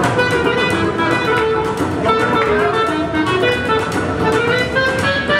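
Small jazz band playing swing: a clarinet carries the melody over upright bass and strummed guitar keeping an even beat.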